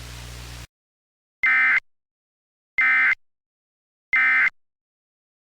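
Emergency Alert System end-of-message data tones: three identical short bursts of the SAME digital signal, evenly spaced a little over a second apart, signalling that the alert is over. Before them, a faint steady hum cuts off about half a second in.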